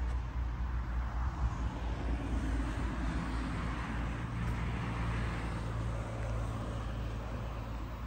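Steady outdoor rumble of road traffic, swelling a little around the middle as a vehicle goes by.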